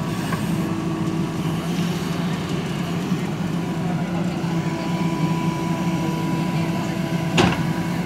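JCB 3DX backhoe loader's diesel engine running steadily under working load while the backhoe digs, with a steady high whine over it. A single sharp knock comes near the end.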